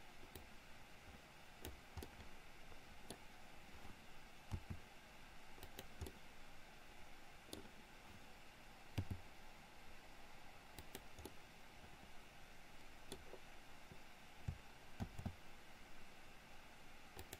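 Faint, scattered clicks of a computer mouse and keyboard at irregular intervals, a few slightly louder, over a low room hiss.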